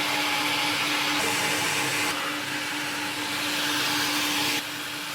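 Electric wood saw running steadily, a constant motor hum under a hiss that shifts several times as the blade cuts through a block of Taihang cliff cypress; the hiss drops in level near the end.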